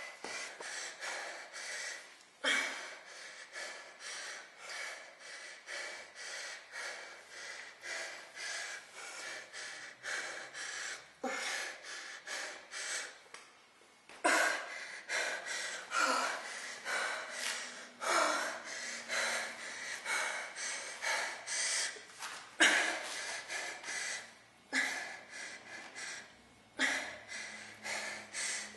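A woman breathing hard from exertion during a bodyweight exercise, in quick short breaths with stronger ones every two seconds or so.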